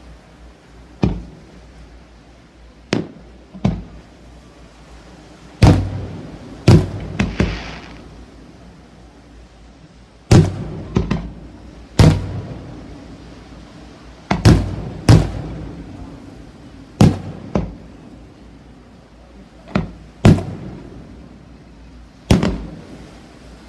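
Aerial firework shells bursting overhead: a string of sharp bangs, some in quick pairs, each followed by a rumbling echo.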